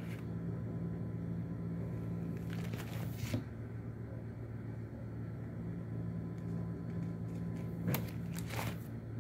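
Stamp album pages being turned by hand: two brief papery rustles, about three seconds in and again near the end, over a steady low hum.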